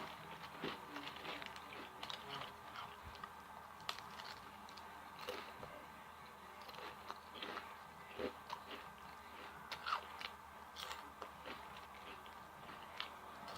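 A person chewing and crunching food close to the microphone, with irregular small clicks and crackles of bites and mouth sounds.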